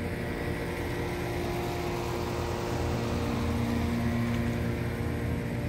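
A steady engine drone with a low rumble, swelling slightly in the middle.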